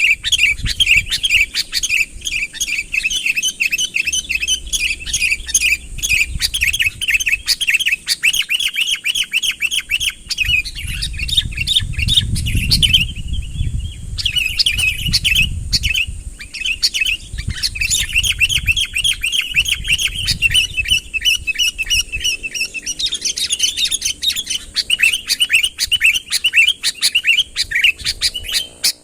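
Sooty-headed bulbul (kutilang) chirping in a fast, unbroken stream of high notes, with a brief pause about halfway through and a low rumble underneath around the middle. This is the persistent calling used to lure rival bulbuls in.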